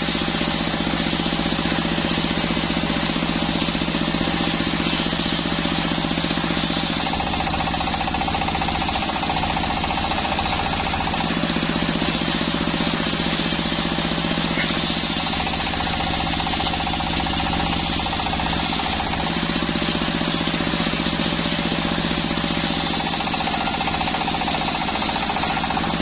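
Bench circular saw machine sawing waru wood, running steadily without a break. A higher tone comes in three times, for about four seconds each.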